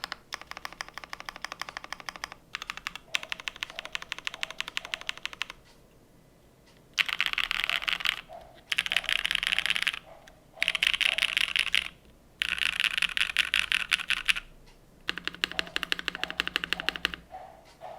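Clacky typing on a Cloudline TKL mechanical keyboard with BCP Frankenswitches, GMK keycaps and a polypropylene plate. Steady typing for about five seconds, a short pause, then louder runs of rapid keystrokes, each about a second long, with brief breaks between them.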